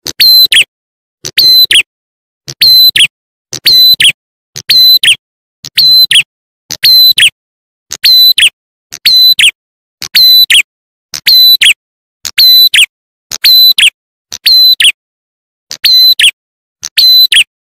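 Looped lure recording of a ciblek klawu (prenjak atas) calling: sharp high call notes, each with a quick falling tail, repeated about one to two times a second, often in pairs. Played loud enough to distort.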